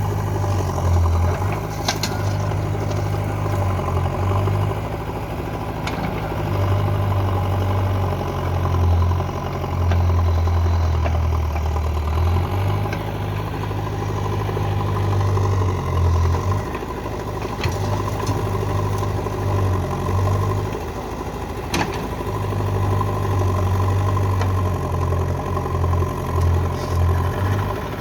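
A heavy machine's engine running steadily at low speed, its hum swelling and easing. A few sharp knocks or clanks are heard, one about two seconds in and one near twenty-two seconds.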